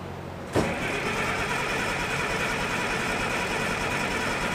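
Starter motor cranking the Case 1570's six-cylinder diesel without it firing, to prime the new turbocharger with oil. The starter engages with a clunk about half a second in, cranks steadily for about four seconds, then stops.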